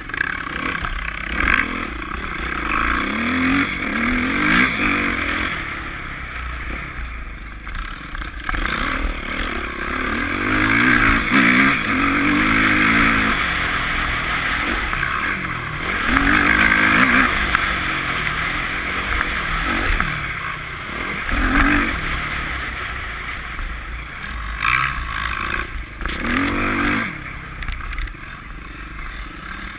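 Dirt bike engine heard from the rider's own bike, revving up and dropping back again and again as it is ridden over snow, with rising pitch sweeps every few seconds.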